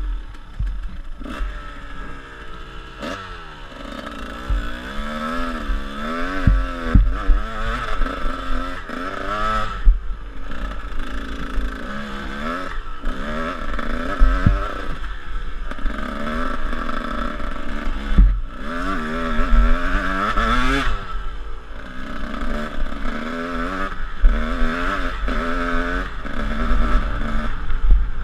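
A 150cc dirt bike engine being ridden hard, revving up and easing off again and again as the rider works the throttle over rough track, with scattered knocks and clatter from the bike over bumps.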